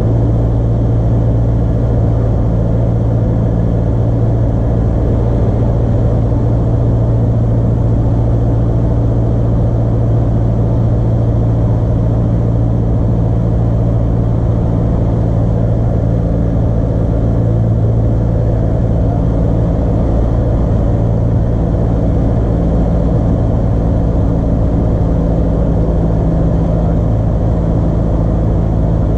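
Light single-engine airplane's piston engine and propeller droning steadily, heard inside the cockpit as a loud, even low hum that holds one pitch throughout.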